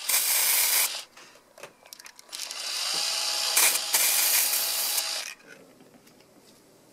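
Aerosol spray can spraying paint onto plaster casts in two bursts: a short one of about a second, then a longer one of about three seconds.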